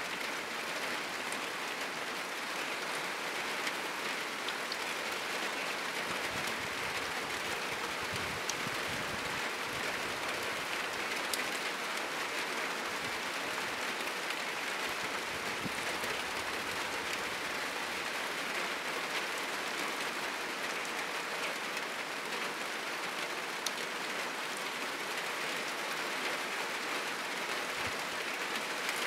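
Heavy rain falling steadily on a corrugated roof: an even hiss, with a few sharp drip ticks.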